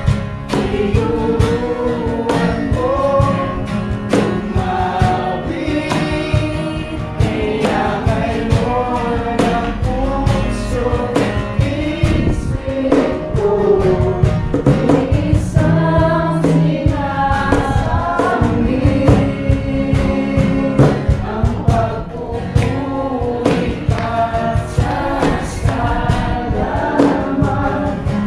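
Christian worship music: a group of voices singing a melody together over a band with a steady beat.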